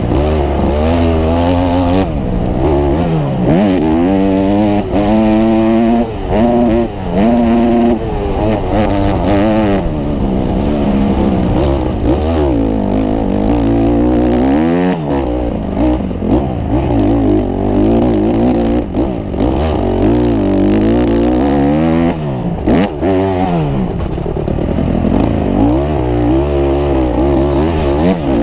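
Motocross bike engine heard close up from a camera mounted on the bike, revving up and dropping back over and over as the rider accelerates, shifts and rolls off through the corners and jumps.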